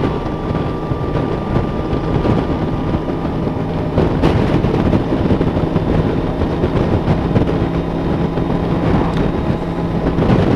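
Motorcycle engine running at a steady cruising speed, with heavy wind rushing over the rider's helmet microphone.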